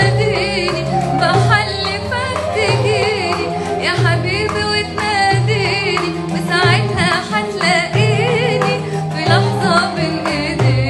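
A woman singing an Arabic love song, her voice wavering through ornamented runs, over band accompaniment with a steadily pulsing bass.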